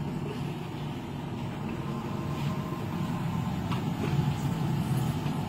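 Steady low hum of a running fan or motor, with a few light knocks.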